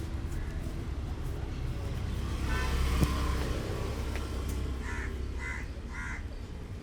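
Steady low rumble of road traffic in the background, with one sharp click about three seconds in. Near the end a bird calls three times in short, evenly spaced calls.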